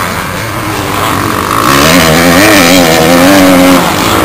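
Motocross motorcycle engines revving hard as the bikes climb and jump the hill. About two seconds in a nearer engine comes in loud, its pitch rising and falling with the throttle, then it fades near the end.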